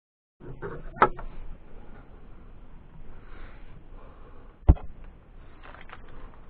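Handling noises in a small room: a low rustle with two sharp knocks, one about a second in and a louder one a little before the end, and a few lighter clicks near the end.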